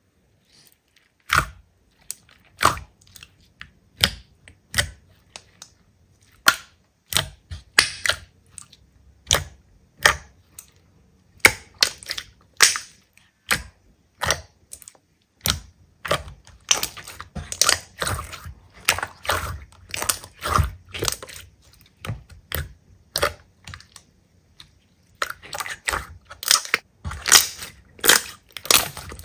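Hands squeezing and pressing slime, making irregular sharp pops and crackles, sparse at times and coming in quick clusters at others.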